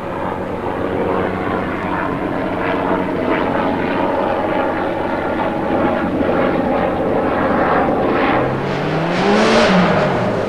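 A rally car on a special stage, heard at full speed approaching through the forest with its engine note repeatedly rising and falling, then passing close about nine and a half seconds in, its pitch climbing and then dropping sharply as it goes by.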